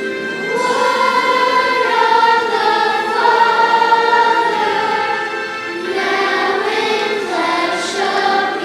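Choir singing, holding long notes.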